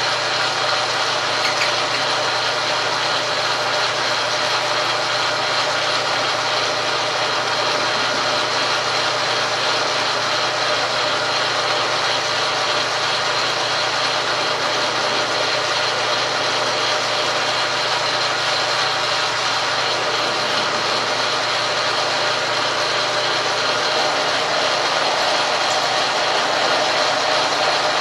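Logan metal lathe running with a carbide tool parting off the spinning stock, a steady machining noise with a constant high whine. The tool is set a little above centre, which the machinist suspects is making the cut sound wrong.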